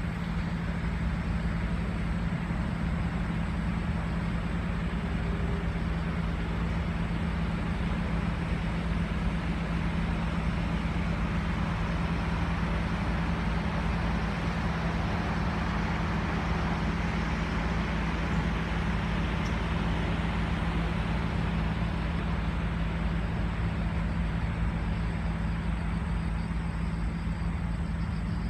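Motor vehicle running at a steady pace: an even engine drone with steady road noise, unchanging throughout.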